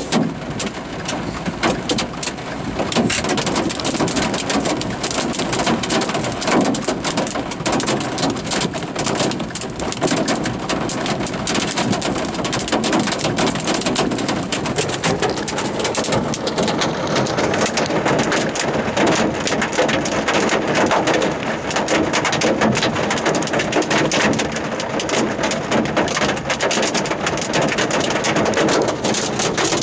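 Heavy rain beating on a vehicle's roof and glass, a dense, steady patter of drops.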